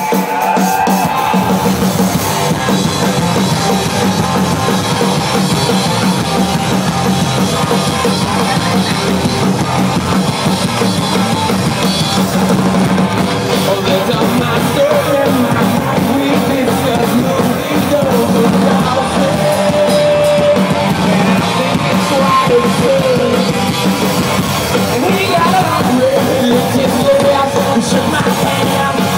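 A live rock band playing loud through the club PA: drum kit, distorted electric guitars and bass under sung and shouted vocals, continuous and dense.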